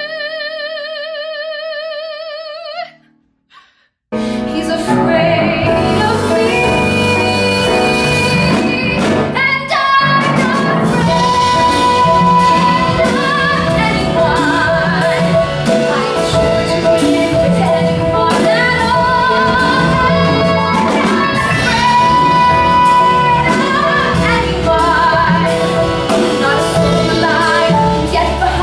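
A woman sings, holding one high note with a wide vibrato that stops about three seconds in. After a short gap she sings again, with instrumental accompaniment, the melody moving through held and bending notes.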